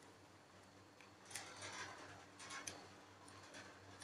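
Faint handling noise: a few soft, scattered clicks and rustles as fingers turn and squeeze a foam toast-shaped squishy toy.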